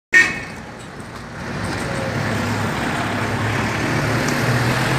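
Street traffic: a steady noise of passing cars with a low engine hum, which grows louder about a second and a half in. A short sharp sound comes at the very start.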